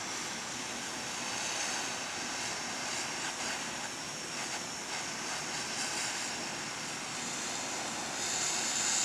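Small handheld propane torch burning with a steady hiss, heating an old screwdriver.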